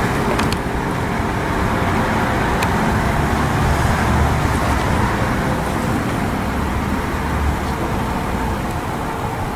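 Steady rumble and hiss of road traffic, with a faint steady tone coming in near the end.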